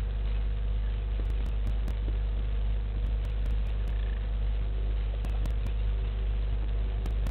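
Steady low hum with a faint hiss and a few faint ticks, unchanging throughout; no distinct animal call or event.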